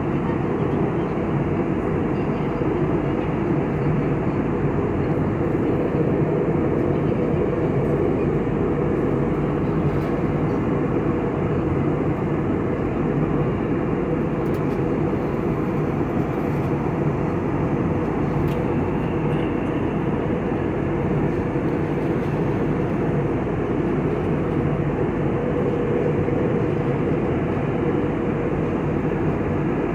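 Airliner cabin noise in flight: a steady, even roar of the jet engines and rushing air, heard from inside the cabin at a window seat.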